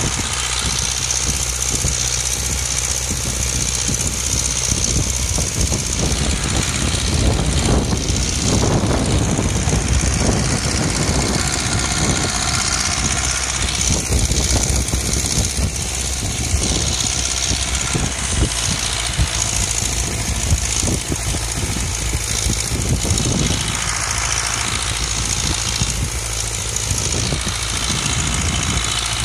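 Zetor 5718 tractor's diesel engine running steadily as it pulls a plough through the field, louder for several seconds near the middle.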